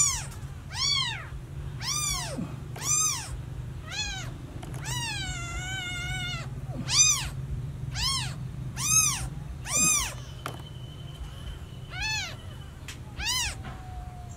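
Newborn kittens meowing for their mother: a string of short, high, arching cries, about one a second, with one longer wavering cry about five seconds in and a pause of about two seconds before the last two cries.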